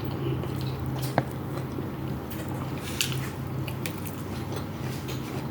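Close-up chewing and biting mouth sounds of someone eating, with many small wet clicks and a sharper click about a second in, over a steady low hum.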